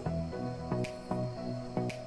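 Background instrumental music with held notes over a bass line and a light percussive hit about once a second.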